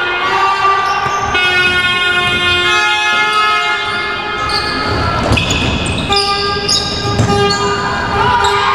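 Several long, steady horn tones blown at once, overlapping and held for seconds, with a brief noisier stretch about five seconds in.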